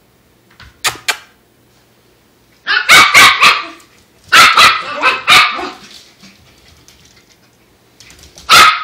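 Wire fox terrier barking in quick volleys at a dust mop, play-attacking it: a run of rapid barks about 3 s in, another about 4.5 s in, and another near the end.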